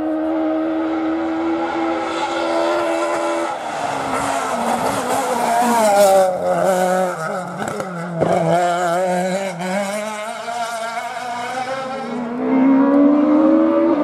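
Rally car engine at high revs, then dropping in pitch as the car brakes and downshifts into a tight bend, with several sharp cracks from the exhaust. It then revs up again as the car accelerates out of the bend.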